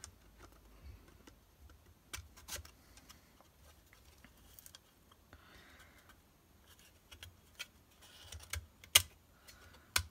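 Hard plastic case parts clicking, tapping and scraping as they are handled and slid together: scattered light clicks, a short rubbing now and then, and the sharpest two clicks near the end.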